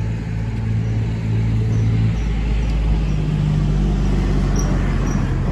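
Car engine running steadily, its pitch stepping up about two seconds in as the engine speed rises, then holding.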